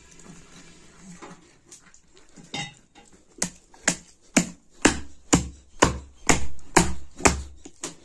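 Wooden mallet pounding minced meat on a stone slab, about two blows a second, starting about three seconds in; each blow lands with a deep thud. The meat is being beaten into a smooth paste for rista and gushtaba.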